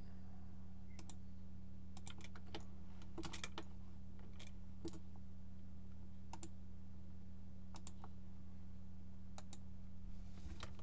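Scattered clicks of a computer mouse and keyboard, some single and some in quick clusters of three or four, over a steady low electrical hum.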